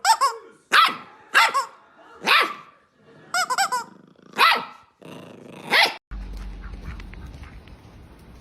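A dog barking, about seven sharp barks with a quick run of them in the middle, then the barking stops abruptly and a low steady rumbling noise takes over.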